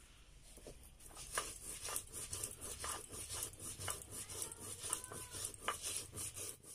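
Whole coriander and cumin seeds being crushed under a hand-rolled stone grinder (nora) on a flat stone grinding slab (shil): gritty crackling and scraping stroke after stroke, starting about a second in.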